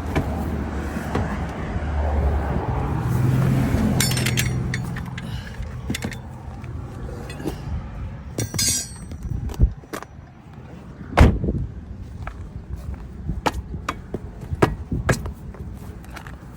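A car engine's low hum swells and fades over the first few seconds, then scattered clicks and knocks follow, the loudest a sharp knock a little past halfway.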